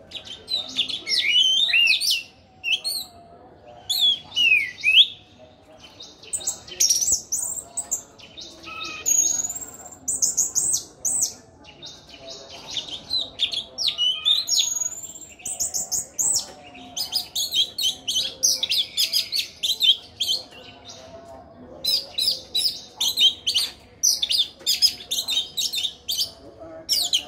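Orange-headed thrush singing a long, varied song: sweeping whistled notes early on, then fast runs of short sharp notes, in phrases broken by brief pauses.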